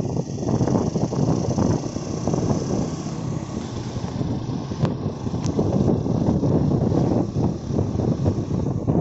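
Wind buffeting the microphone over the rumble of moving along a road, with two light clicks about halfway through.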